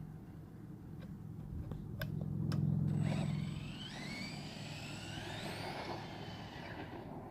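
Redcat Earthquake 8E RC monster truck's electric motor whining and rising in pitch as the truck accelerates. It comes after two sharp clicks and a low rumble that swells to its loudest about three seconds in.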